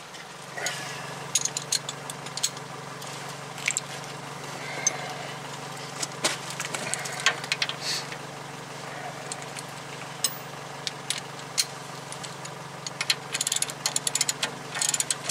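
Hand ratchet with a 15/16-inch socket running down the castle nut on a truck's lower ball joint stud: scattered ratchet clicks, coming in quick runs near the end, over a steady low hum.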